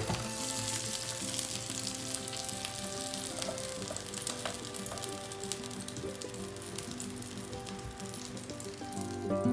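Crackling sizzle of a filled flatbread wrap toasting on the hot ribbed plates of an electric sandwich press, a dense patter of fine crackles that fades near the end.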